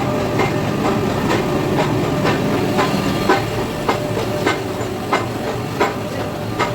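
Nilgiri Mountain Railway train running on the track: a steady rumble with the wheels clicking over the rail joints about every half second, the clicks spreading a little further apart as the train slows.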